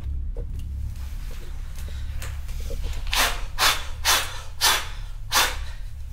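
A low steady drone, with five short, sharp hissing breaths in quick succession past the middle, about two a second.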